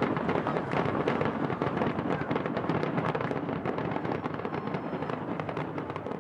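Fireworks going off in a dense, rapid barrage of crackling pops and bangs, thinning slightly near the end.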